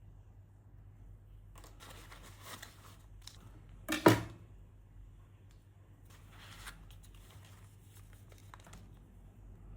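Packaging being opened by hand: bouts of crinkling and tearing, with one sharp, loud snap about four seconds in.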